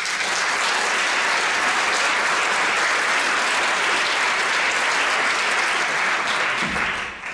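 Concert audience applauding steadily, then dying away near the end.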